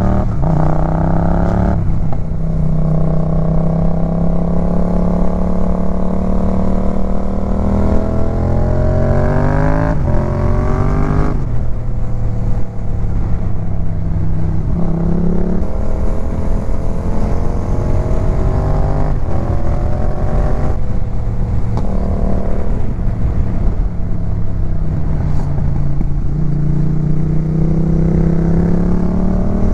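Yamaha MT-07 parallel-twin engine accelerating hard through the gears. The revs climb and then drop at each upshift, with one long climbing pull in the first ten seconds or so and several shorter ones after.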